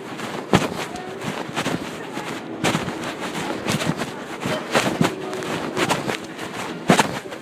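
Supermarket ambience: scattered clattering knocks and clicks over a steady background hum of the store, the sharpest knocks about half a second, two and a half seconds and seven seconds in.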